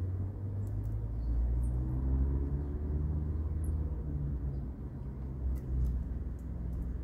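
Low rumble of an engine, swelling about two seconds in and easing off a few seconds later, like a vehicle passing, with a few faint ticks and faint high chirps above it.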